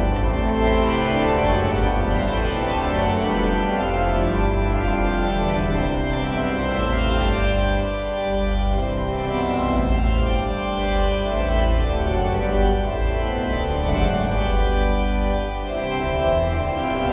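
An organ playing a tune: sustained chords over a steady low bass, continuous and loud.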